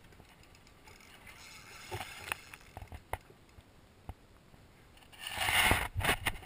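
Handling noise from a spinning reel and fishing rod: faint scattered clicks and taps. About five seconds in comes a louder scraping rustle of a hand and shirt sleeve brushing against the camera.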